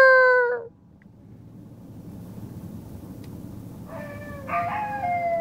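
A man's imitation howl ends with a falling drop in the first second. After a pause, wild dogs answer from about four seconds in with fainter, overlapping howls, one long howl sliding slowly down in pitch.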